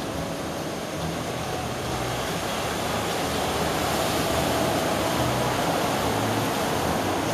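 Breaking wave in an artificial wave pool: a steady rushing roar of whitewater that swells a little about three seconds in.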